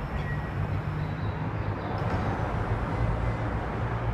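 Steady low hum and hiss of a Hokuso Railway 7500 series electric train standing at the platform.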